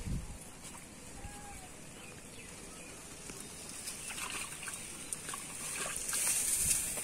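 Faint outdoor ambience at a pond's edge: an even hiss with a few short clicks and rustles from about four seconds in, and a high hiss that swells near the end.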